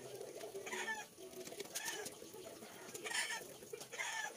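Rusty steel ball bearings clinking against welded roller chain as they are set into place, a few sharp metal clicks, with chickens clucking in the background.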